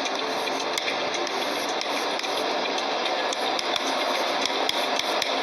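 Steady, even background hiss with a few faint clicks scattered through it.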